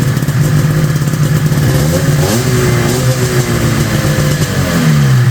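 Swapped-in Rotax 583 two-stroke twin in a vintage Ski-Doo Blizzard snowmobile running after its first start in a year. It runs steadily, revs up sharply about two seconds in, then slowly drops back toward idle.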